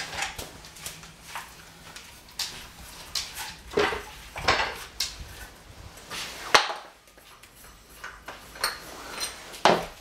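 Metal tool parts clinking and clattering as a hole saw is unscrewed from its arbor on a cordless drill and set down on the floor: a string of scattered small clicks and knocks, with a sharper clank about six and a half seconds in and another near the end.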